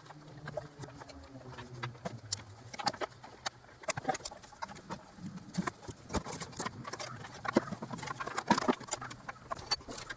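Irregular light metallic clicks and taps of a socket on a wobble extension and intake manifold bolts being threaded in hand-tight.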